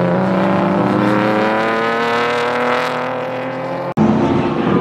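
Race car engine accelerating hard, its note climbing slowly and steadily. Near the end the sound breaks off suddenly and a car engine with a lower note takes over.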